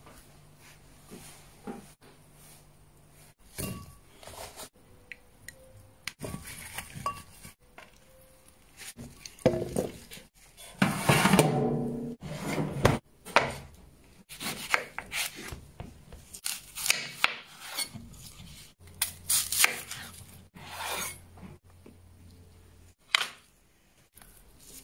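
Kitchen handling sounds: scattered clinks and clatters of dishes and a metal baking tray, with a louder, longer clatter about ten seconds in as the tray goes into the oven.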